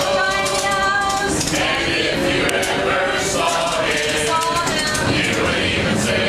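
A group of people singing a Christmas carol together, several voices holding long notes and moving between pitches.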